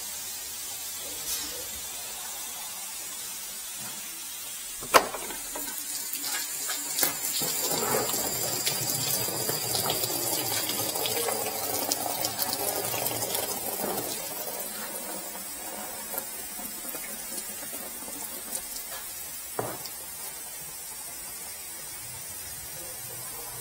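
Engine coolant pouring from an opened radiator hose connection and splashing onto a concrete floor. It starts just after a sharp click about five seconds in, runs strongest for several seconds, then eases to a thinner trickle.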